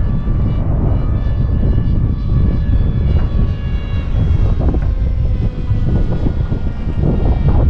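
Electric motor and pusher propeller of an RC Fleet Sonic Wing flying wing whining in flight, its pitch slowly falling, over heavy wind noise on the microphone.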